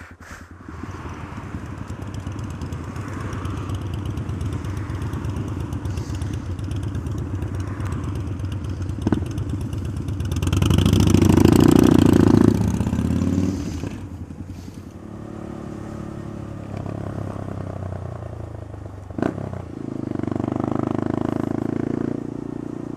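Honda Grom's small single-cylinder engine running as the motorcycle rides through traffic, with wind and road noise on the helmet camera. The engine sound swells to its loudest about halfway through, then drops back.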